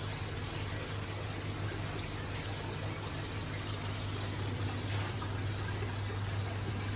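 Steady running, splashing water from aquarium filtration and aeration, over a constant low hum from a pump.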